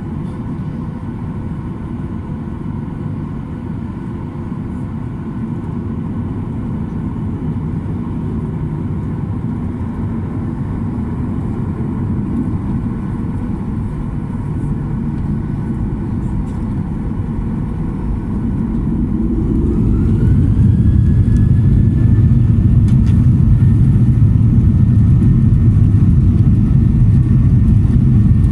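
Jet airliner heard from inside the cabin: a steady low rumble with a faint engine whine. About two-thirds of the way through, the engines spool up for takeoff, a whine rising in pitch as the rumble grows louder and then holds at full power.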